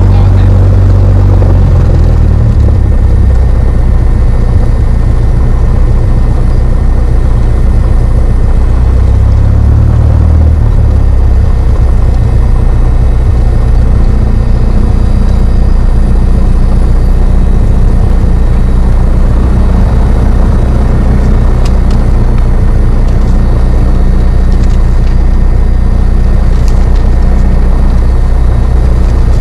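Single-engine light aircraft's piston engine and propeller running at low taxi power, heard from inside the cockpit; the engine note shifts briefly about ten seconds in, then settles again.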